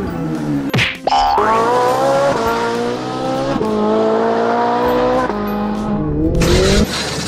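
Dubbed-in race-car engine sound effect revving up in steps as if shifting through gears, after a quick rising zip about a second in. Near the end a burst of noise comes as the die-cast toy car smashes into a pile of toy cars.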